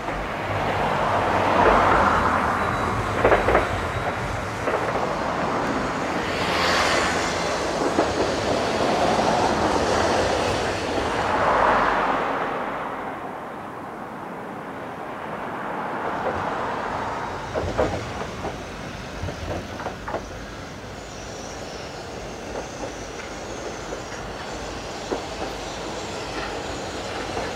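Hiroshima Electric Railway streetcars running along a city street with road traffic, their noise swelling and fading as they pass, with a few sharp knocks of tram wheels over rail joints.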